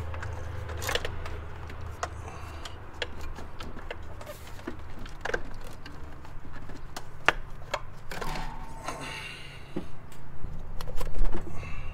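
Stock Subaru WRX top-mount intercooler being wiggled and lifted out of the engine bay: scattered knocks, clicks and a scrape as it works free of its hoses and brackets, over a steady low hum.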